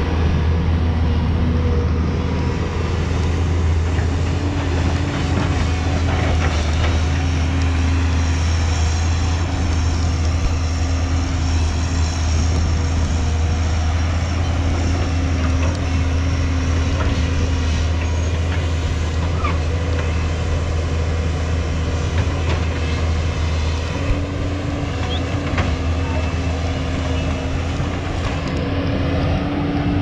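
Diesel engine of a JCB tracked excavator running steadily as it digs and swings, with an occasional knock from the bucket.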